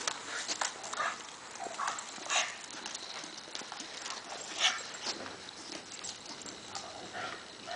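Irregular taps and scuffs of footsteps on asphalt: a dog's paws and the walkers' shoes, as the dog walks in a two-wheeled rear-support dog wheelchair.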